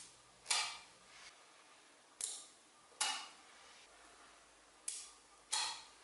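Small magnetic balls snapping together and against the magnet-ball mat: five or six sharp metallic clicks at irregular intervals, some followed by a brief clatter.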